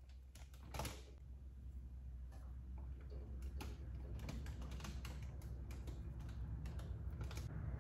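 Irregular small clicks and crackles of packaging being handled as rose lily bulbs are unpacked, over a steady low hum.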